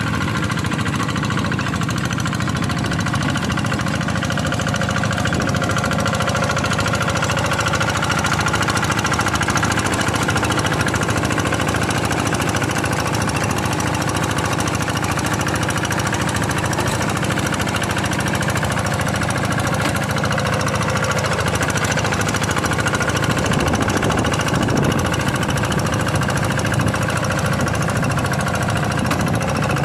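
Quick G1000 hand tractor's single-cylinder Kubota diesel engine running steadily while the tractor plows a rice field.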